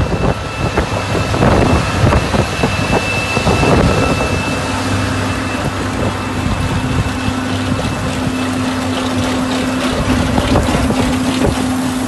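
Case IH tractor and the trailed harvesting implement it pulls, running together through a leafy crop: a loud, uneven machine rumble with crackling from the crop being fed in. A steady hum joins about four seconds in and holds.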